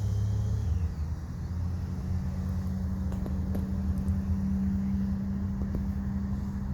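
A vehicle engine running steadily with a low hum, its pitch stepping up about a second in, with a few faint clicks over it.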